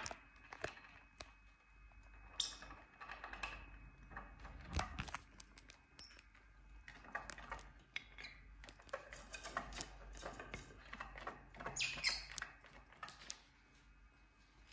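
Faint, scattered clicking and scratching of a lovebird's beak and claws on a wooden shelf, with a few slightly longer scrapes.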